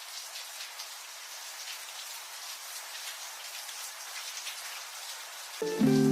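Steady rain-like hiss and patter that starts abruptly. Near the end, background music with a guitar comes in, louder than the rain.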